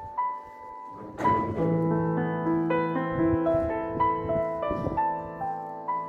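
Background piano music: single notes picked out one after another over ringing, held chords.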